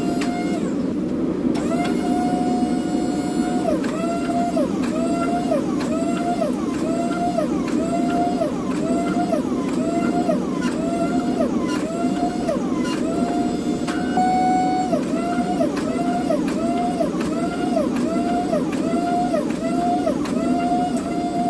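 Forging press working a red-hot stainless san mai billet: a loud machine whine that sags in pitch and recovers about one and a half times a second, over a steady rushing noise.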